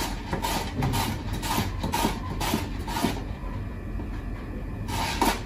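A vegetable being rubbed up and down a handheld grater, making rhythmic scraping strokes about two a second. The strokes stop about three seconds in and start again near the end.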